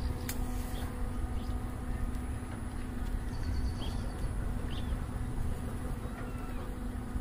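Outdoor background of a steady low rumble and a faint steady hum, with a few short bird chirps scattered through it.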